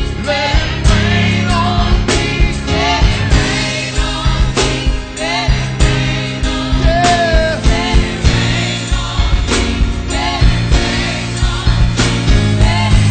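Gospel praise team singing with a band: several voices carry the melody over steady bass notes and a regular drum beat.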